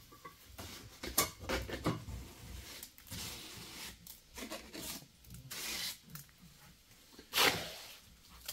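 Irregular scraping and rubbing strokes mixed with clicks and light knocks. The loudest is a single sharp scrape about three-quarters of the way through.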